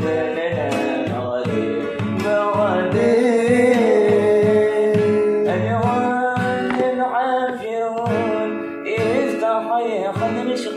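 Sholawat (Islamic devotional song) sung solo to a steadily strummed acoustic guitar. The voice holds long, wavering notes, with a long sustained note about three to five seconds in.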